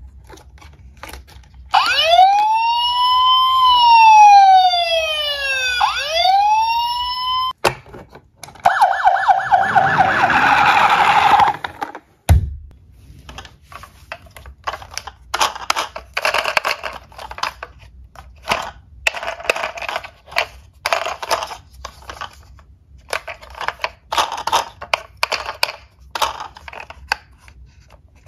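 Electronic siren of a battery-powered Tonka toy ambulance, wailing up and down in pitch for about six seconds, followed by a fast-pulsing siren sound for about three seconds. Then a knock and a long run of small clicks and rattles as plastic toy cars are handled in a cardboard box.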